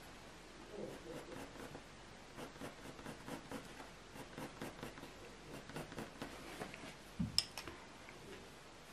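A 4B graphite pencil flicking short strokes on hot-press watercolour paper: a faint, quick scratching, several strokes a second. About seven seconds in there is a single soft knock followed by a couple of clicks.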